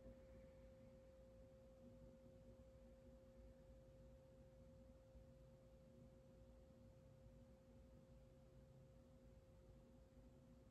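Near silence with a faint, steady pure tone and a low hum underneath.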